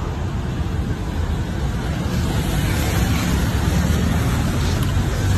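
Steady outdoor rumble of road traffic, with wind buffeting the phone's microphone.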